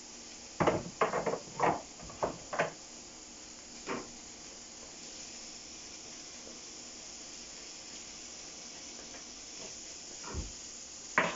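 Onions sizzling in hot canola oil in a frying pan, a steady high hiss. Over it, a quick run of sharp clattering knocks of cookware about a second in, a single knock a little later, and another clatter near the end.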